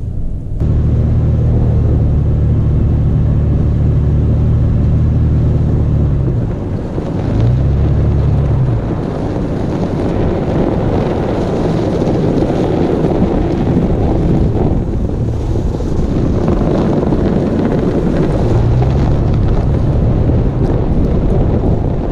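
Toyota FJ Cruiser's 4.0-litre V6 pulling at low speed over a packed-snow track, under a steady rush of tyre noise and wind buffeting on the microphone. The engine note swells and falls about seven seconds in and again near the end.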